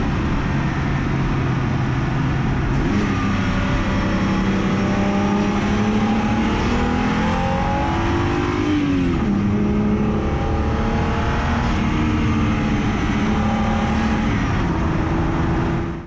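BMW N52 3.0-litre straight-six accelerating hard. It holds a steady pitch, steps up about three seconds in, and revs climb until a sudden drop near nine seconds as it shifts up, then the revs climb again. The sound cuts off abruptly at the end.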